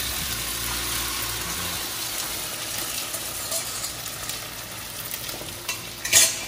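Beaten egg sizzling on a hot iron tawa as it is poured over fried mushrooms and vegetables and spread out. The steady sizzle eases off a little, and there is one short, loud knock about six seconds in.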